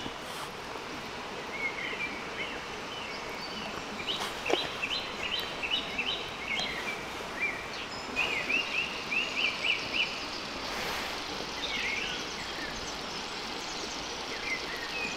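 Songbirds singing: several bursts of rapid, repeated chirping trills over a steady outdoor hiss, with a single sharp click about four seconds in.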